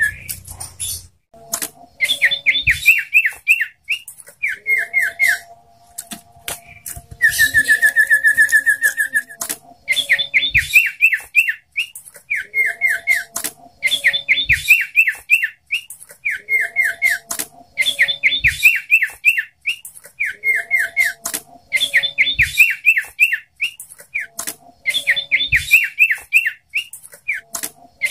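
Sirtu songbird singing in a phrase that repeats about every three and a half seconds: a quick run of sharp down-slurred chips with softer lower warbling notes beneath. A longer, fast buzzy trill comes about a third of the way in.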